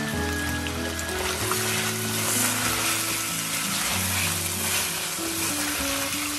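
Lamb pieces sizzling in hot oil as they are sautéed over a medium flame in a stainless steel pot, a steady hiss, while being stirred with a wooden spoon. Soft background music plays underneath.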